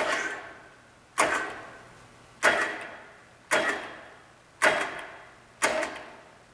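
Drill press motor bumped on and off with its push-button switch, driving a tapered pipe tap into an oil gallery hole in a cast-iron Pontiac 389 engine block. It runs as about six short bursts, roughly one a second, each starting suddenly and fading over about a second.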